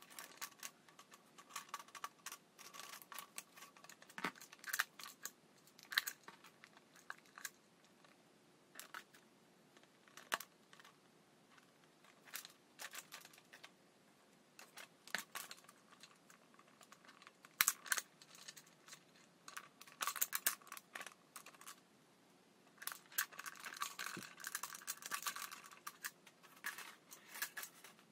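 Handwork on a plastic-bottle pinwheel: irregular sharp clicks of pliers working wire, mixed with crinkling of the thin plastic bottle blades, with a denser crinkling stretch a few seconds before the end.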